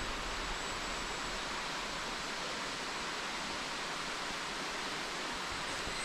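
Cicadas buzzing in a steady, unbroken hissing drone that sounds like buzzsaws.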